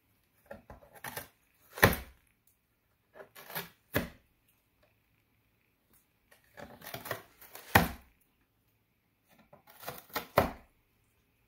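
Cat gnawing and tearing the shredded rim of a corrugated cardboard box with its teeth: four bouts of crunching and ripping, each ending in a louder rip.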